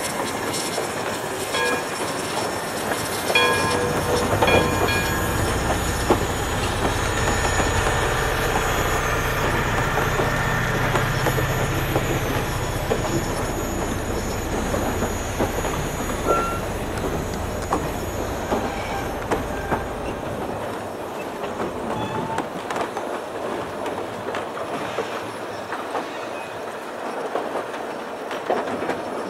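Railway passenger coaches rolling past over a timber trestle: steady wheel-on-rail noise with scattered clicks from the wheels crossing rail joints and a few brief wheel squeals. A low rumble fades away about two-thirds of the way through.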